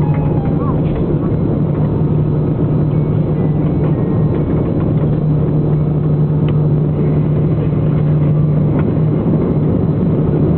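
Airliner cabin noise while taxiing after landing: a steady jet-engine drone and rumble with a strong low hum.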